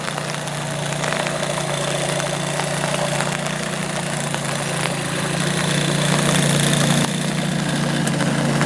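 Small outboard motor on a bathtub boat running steadily at low speed.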